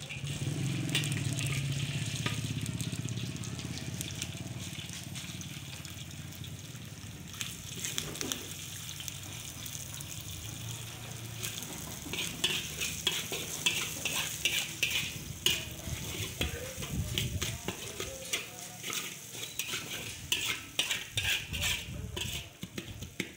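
Shredded cabbage and chopped green vegetables sizzling in hot oil in a large metal wok, loudest in the first few seconds, while a flat spatula stirs them. From about halfway the spatula scrapes across the wok in many quick strokes.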